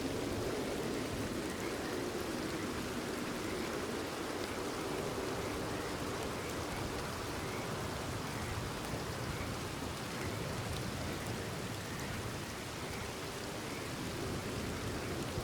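Steady rain falling, with frogs calling faintly and repeatedly behind it.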